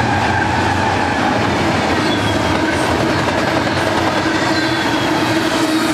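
Freight train passing close by: a steady, loud rumble of steel wheels on rail as double-stack container well cars roll past, the drone of the last diesel locomotive fading out right at the start.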